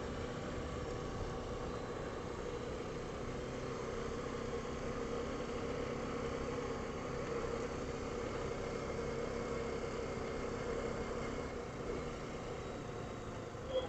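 Honda ATV engine running steadily with an even hum, heard from the riding machine.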